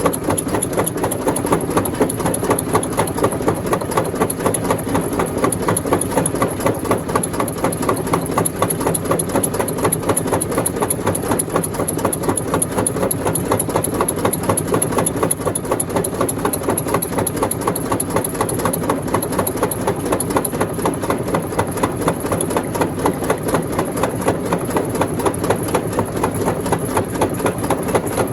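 Rock crusher machine running steadily: an engine-like drone with a rapid, even pulsing beat throughout.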